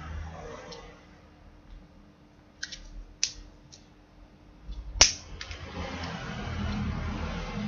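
A few sharp clicks and taps of a spoon and a plastic dessert container being handled while eating, the loudest one about five seconds in. After it comes steady rustling handling noise close to the microphone.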